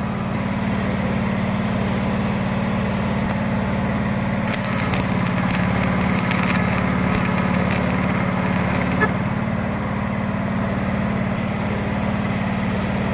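A small engine running steadily at an even speed, with a crackling, spitting hiss for about four seconds in the middle.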